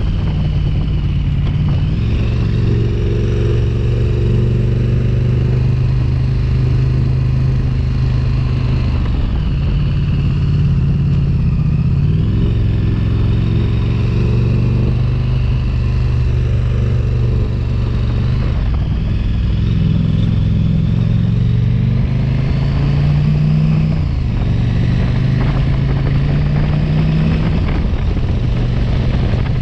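Motorcycle engine running steadily while riding, its pitch dipping and rising a few times as the throttle changes.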